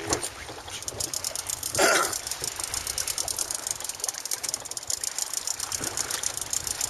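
Spinning reel on a boat rod being cranked to retrieve the line, giving a fast, steady ticking of about ten clicks a second that starts about a second in. A brief louder noise comes about two seconds in.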